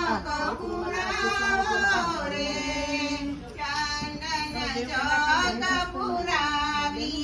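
Women singing a Gujarati haldi (pithi) wedding song, held, wavering notes in several voices.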